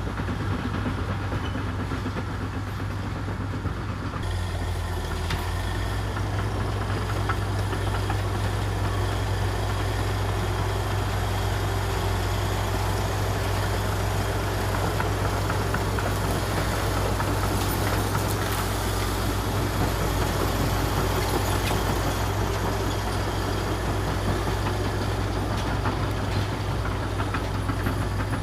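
Komatsu D61EX bulldozer's diesel engine running steadily under work, its note shifting about four seconds in.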